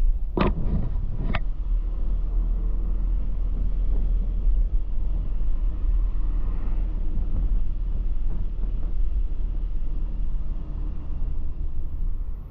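Vehicle driving on a road, with a steady low rumble of engine and tyres. Two sharp knocks come in the first second and a half.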